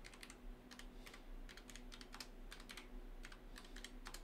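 Faint, quick keystrokes on a computer keyboard, typing a run of text at an uneven pace.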